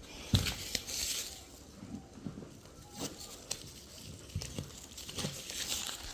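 Masking tape being peeled off and crumpled by hand: short rasping rips and crinkles mixed with scattered light clicks and taps.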